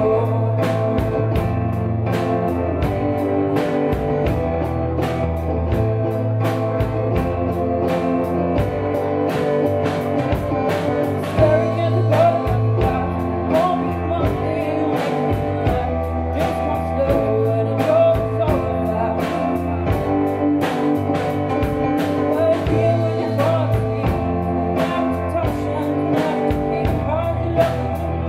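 Live band playing a song: a young woman singing into a microphone over keyboard and a drum kit keeping a steady beat.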